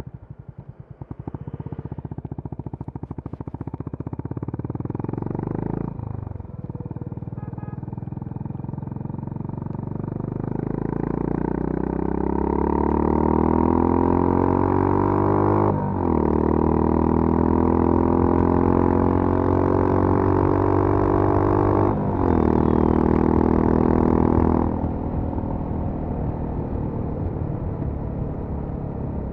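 Honda CB350 RS's single-cylinder engine through its stock exhaust at full throttle, the engine note climbing steadily in each gear, with three upshifts where the pitch drops suddenly. About 25 s in the throttle eases and the engine settles to a lower, quieter steady run.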